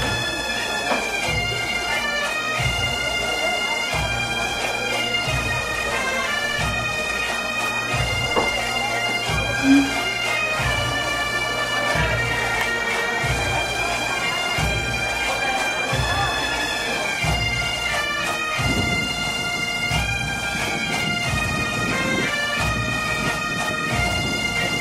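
Bagpipe tune, most likely an Asturian gaita: a stepping melody played over a steady drone, with a regular low beat under it. A short bump sounds about ten seconds in.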